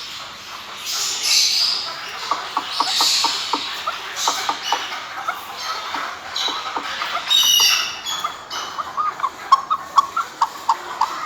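Chukar partridge calling: a run of short, repeated chuck notes that begins about two seconds in and speeds up toward the end. Several brief higher hissing bursts come in the first half.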